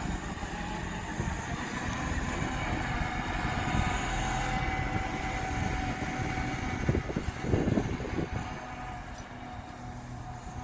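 All-wheel-drive Honda Civic EM2 driving on the road: steady engine, tyre and road noise, with a few louder jolts about seven to eight seconds in.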